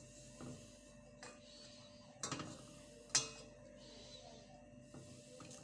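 A few light clicks and clinks of a utensil against a cooking pot as bay leaves are lifted out of the soup, the sharpest about three seconds in.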